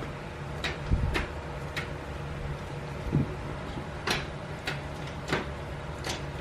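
Aftermarket short throw gear shifter in a Toyota Tacoma being worked through the gears by hand, giving a series of irregular metallic clicks and clunks as the lever moves through the gates, over a steady low hum.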